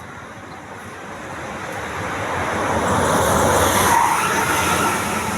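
A road vehicle passing by: engine and tyre noise swells to a peak about four seconds in, then eases off.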